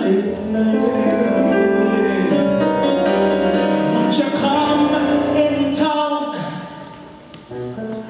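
Live small jazz ensemble playing, with singing over steelpan, keyboard, bass guitar and drum kit. Near the end the band thins out for a moment before coming back in full.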